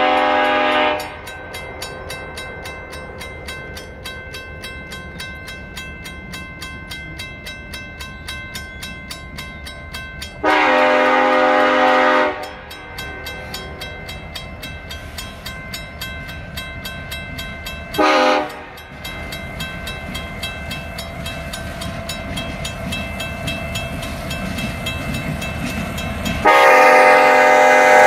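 Train horn sounding four blasts, long, long, short, long: the standard signal for a grade crossing. Between the blasts a steady train rumble grows louder toward the end.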